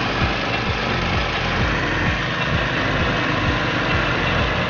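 The petrol engine of a Grillo CL 62M walk-behind brush mower runs steadily while the mower cuts tall grass.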